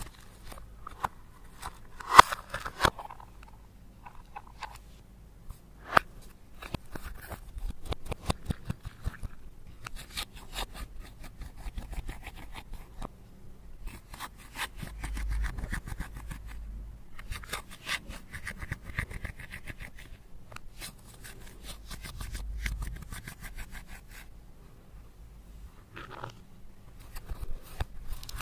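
Slime being mixed and worked by hand: a constant run of irregular sticky clicks, crackles and small pops, with a few louder snaps about two to three seconds in and six seconds in.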